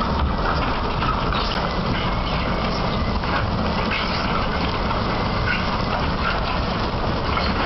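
Bucket wheel excavator at work: a steady, dense mechanical rumble with scattered short squeaks and scrapes of metal over it.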